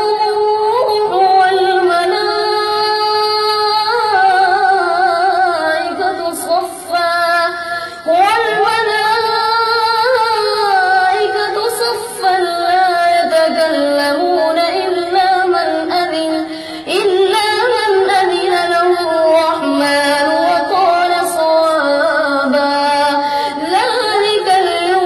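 A boy's voice reciting the Quran in a melodic chant, drawing out long notes that slide up and down, with short breaks between phrases.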